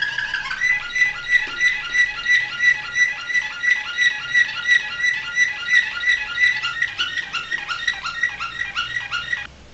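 Domestic canary singing. About half a second in it changes from one tour to a steady string of short, clear notes, about three a second, which breaks off suddenly near the end.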